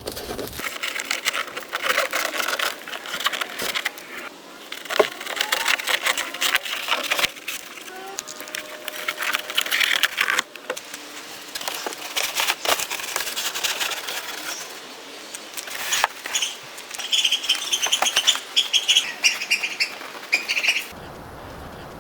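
Rough scraping and rustling with many small crackles as old fabric and crumbling, flaking foam are worked off a car headliner board.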